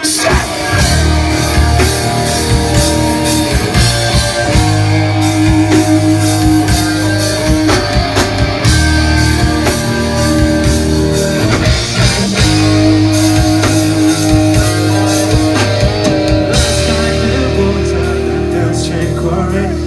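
Rock band playing live at full volume: electric guitar over a heavy sustained bass line and steady drum hits, with no vocal to speak of.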